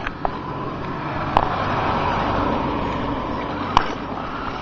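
Electric motor and gearbox of a Tamiya Scania R620 radio-controlled truck running steadily as it drives over a dirt track, with two sharp clicks, one about a second and a half in and one near the end.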